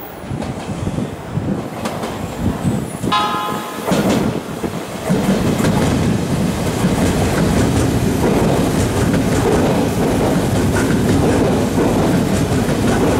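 Odakyu Line electric commuter trains on the rails, with wheel rumble and clatter. A short train horn toot sounds about three seconds in. From about five seconds in the rumble grows louder and steady as a train runs close past.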